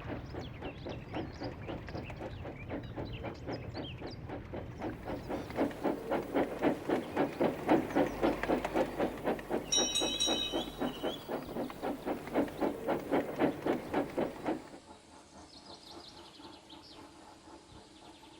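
Steam locomotive puffing in a fast, even rhythm of chuffs that grows louder, with a short high whistle about ten seconds in. The puffing cuts off suddenly near the end, leaving a much quieter background.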